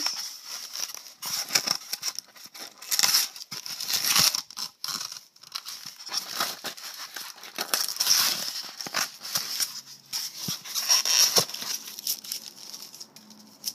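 Irregular rustling, crinkling and light knocks from things being handled close to the microphone.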